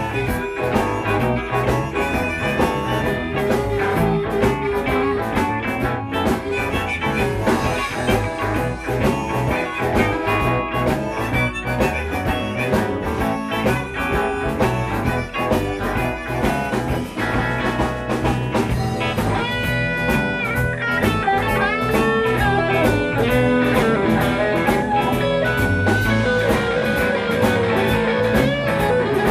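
Live blues-rock band playing: electric guitars, bass guitar and drum kit keeping a steady beat, with a harmonica blown into the vocal microphone. Lead lines bend in pitch in the second half.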